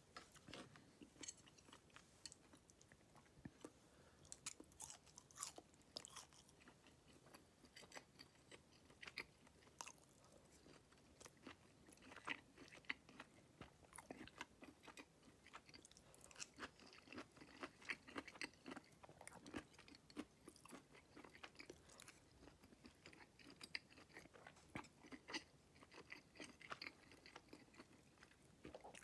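Quiet, close-up chewing and mouth sounds of a person eating stewed chicken and vegetables, with many small irregular clicks and smacks.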